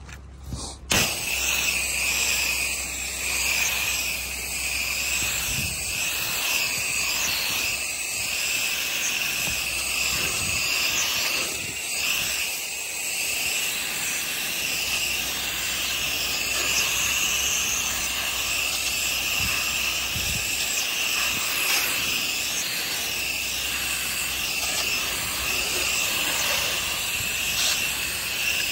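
Pressure-washer wand spraying a house-wash cleaning mix of about 1% onto the deck boards to soak them down: a steady hiss of spray that starts about a second in and holds even.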